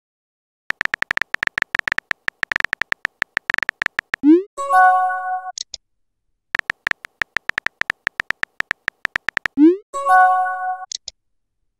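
Phone chat-app sounds: rapid keyboard tapping clicks for about three seconds, then a quick rising swoop and a short chime of a few tones as a message sends. The same pattern of typing and a send chime repeats once.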